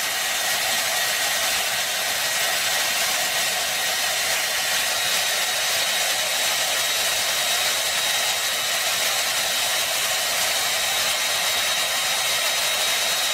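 Handheld hair dryer running steadily: a continuous blowing rush with a thin, steady high motor whine.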